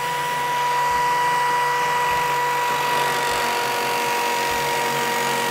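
Electric drill running steadily, driving a Bad Dog Biter cutter as it cuts a circle in sheet metal, with a steady whine.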